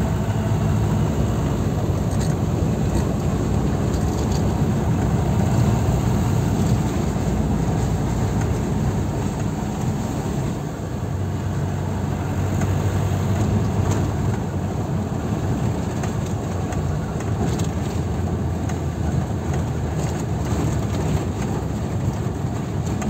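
Steady low rumble of a car driving on an unpaved gravel road, engine and tyre noise heard from inside the cabin.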